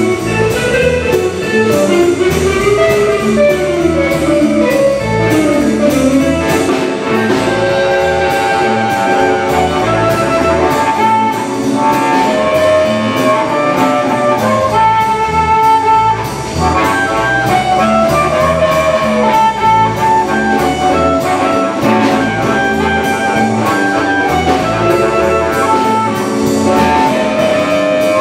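Live blues band playing: an amplified harmonica wails the lead over electric guitar, electric bass and a drum kit keeping a steady beat.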